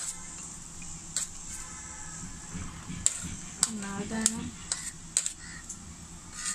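Metal spoon scraping chopped fruit off a ceramic plate into a ceramic bowl, with a series of sharp clinks as the spoon hits the china.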